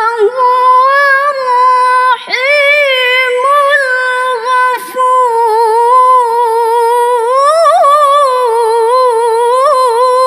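A woman reciting the Quran in the melodic tilawah style: one long, high, held phrase with quick wavering ornaments, broken by two brief pauses about two and five seconds in.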